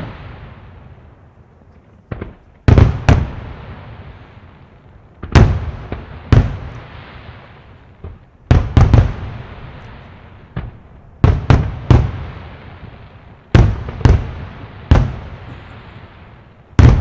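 Fireworks display shells bursting with sharp, loud bangs, coming in twos and threes every two to three seconds, each bang trailing off into a long echoing rumble.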